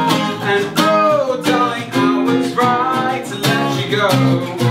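A band playing live: guitar strummed in a steady beat, with a voice singing gliding, held notes over it.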